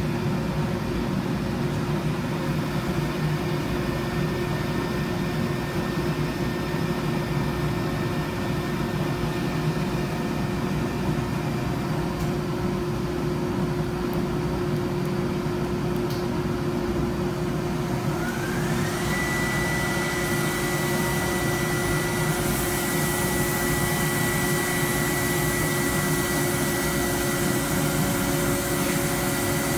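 Plastics-processing machinery running with a steady mechanical drone and hum. About two-thirds of the way in, a motor spins up in a rising whine and settles on a high, steady pitch, and a rushing air noise joins it.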